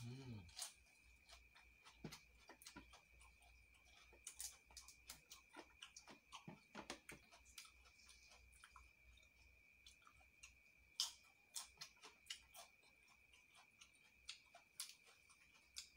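A person chewing lettuce leaves, quiet, with many small irregular mouth clicks and smacks. A faint steady high-pitched tone runs underneath.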